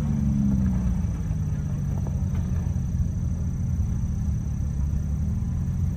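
Jeep engine running at low revs as the jeep eases down a steep dirt trail. Its pitch falls off over the first second, then holds as a steady low rumble.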